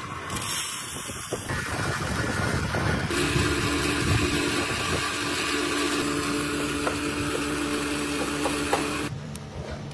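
Dhanlaxmi domestic flour mill (chakki) grinding dried split chickpeas into besan: dal rattles into the steel hopper at first, then the motor runs with a steady hum under a dense grinding hiss. The sound cuts off suddenly about nine seconds in.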